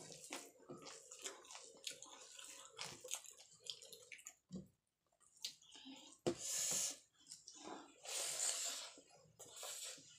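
Close-up eating sounds: wet squishing and clicking of fingers mixing rice with dal on a steel plate, with chewing and lip smacks, and a few short wet hissing bursts.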